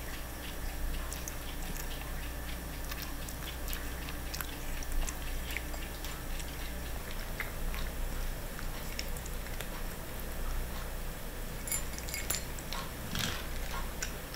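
Cats eating from a dish: close chewing of cat food, a steady run of small irregular clicks and crunches, over a low background hum that changes about seven seconds in.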